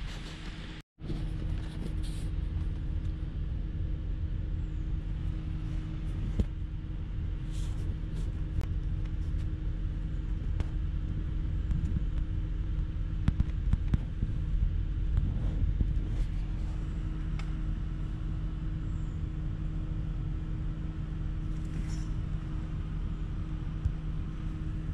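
Car running, a steady low rumble with a constant hum, and a few faint clicks.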